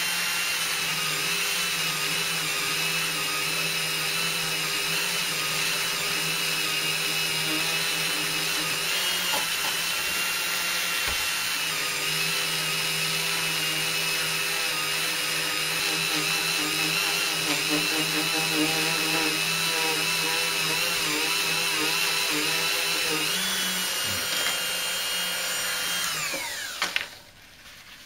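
Handheld rotary drill spinning a polishing pad with wet polish against a glass paperweight, its motor whining at a steady speed, the final polishing stage after wet-and-dry sanding. Near the end it is switched off and its whine falls away as it winds down to a stop.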